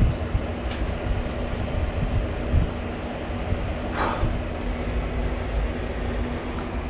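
Repaired air conditioner running, a steady hum with low rumble, the sound the repairman calls normal. A brief squeak comes about four seconds in.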